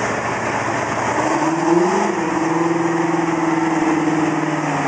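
Large tractor engine running. Its pitch rises about a second and a half in, then settles and holds steady.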